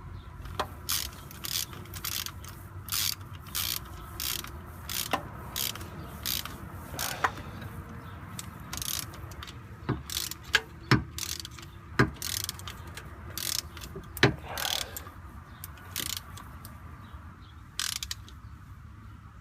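Hand socket ratchet clicking in short back-and-forth strokes, about two a second, as it tightens a drive shaft bolt, with a few sharper metal knocks in the middle.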